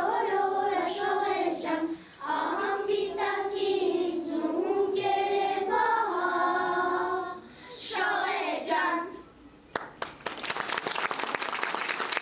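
A children's choir singing together, with the song ending about nine seconds in. Audience applause breaks out just before the ten-second mark.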